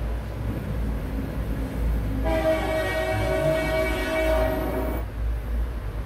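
BNSF diesel locomotive air horn sounding one steady blast of a little under three seconds, starting about two seconds in and cutting off sharply, over a low rumble. It is heard played back through a TV's speakers.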